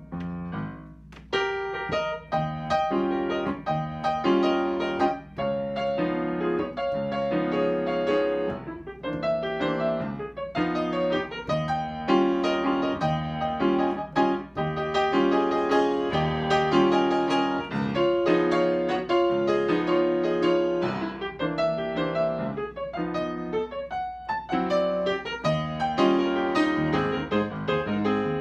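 Solo upright piano playing a slow, continuous piece in chords and melody, with a brief lull about a second in.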